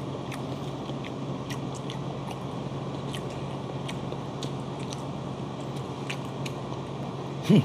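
People eating raw bigfin reef squid sashimi with chopsticks: quiet chewing and the odd small click of chopsticks on dishes, over a steady low hum.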